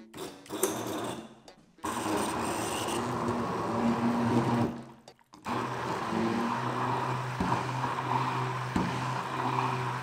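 Hand-held stick blender running in a plastic beaker, chopping a Big Mac in water into liquid. It runs steadily in two long stretches, stopping briefly about five seconds in.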